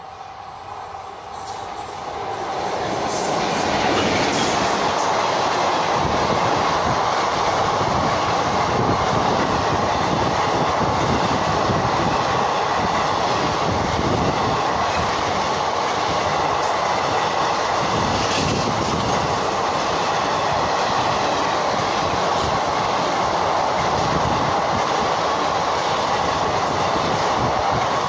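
An Indian passenger express hauled by a WAP-4 electric locomotive passes close by at speed. The noise builds over the first few seconds as the train arrives, then holds as a loud, steady rumble of the coaches rolling past.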